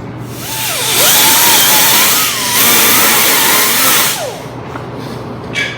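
Angle grinder grinding a steel mower frame down to bare metal. Its motor pitch sags and recovers under load, it eases off briefly midway, and it spins down a little after four seconds.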